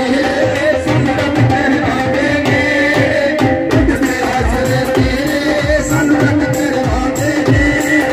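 A man singing Punjabi music through a microphone and PA, with long held notes, over a drum beat that comes in strongly, about two beats a second, about four seconds in.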